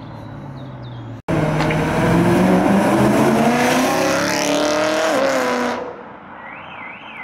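BMW E92 M3's 4.0-litre V8 accelerating hard past at close range, its engine note climbing in pitch, with a short dip near the end of the pull before it fades away. Just before that, near the end, an alarm starts warbling up and down.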